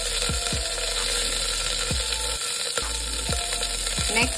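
Curry leaves sizzling in hot olive oil in a pressure cooker.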